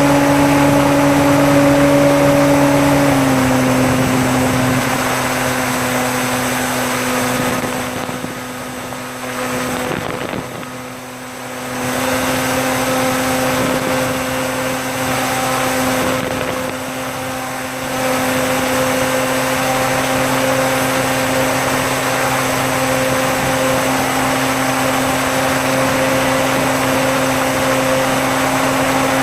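Electric motor and propeller of a Bixler foam RC plane running steadily in flight, heard from a camera on board, with air rushing past. The hum steps down slightly in pitch about three seconds in, and the motor is throttled back twice, once about a third of the way in and again soon after, before picking up again.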